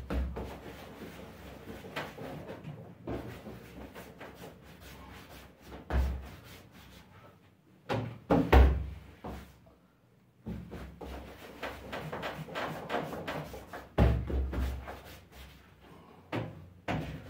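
Irregular thumps and knocks of divided bread dough pieces being handled and set down on a work table, with a few heavier thuds.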